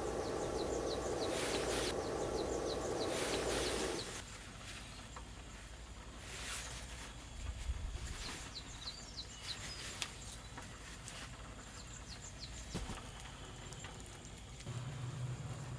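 Small birds chirping in short, quick, falling calls, over a steady low rushing noise that stops about four seconds in. A few light knocks follow, and a low hum starts near the end.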